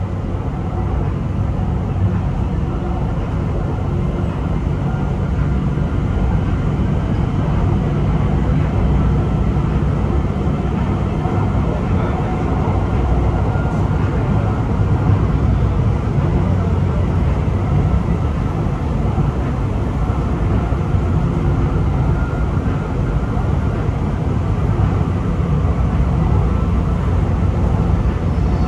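Steady running rumble of an MRT metro train on elevated track, heard from inside the leading car, with no pauses or sudden changes.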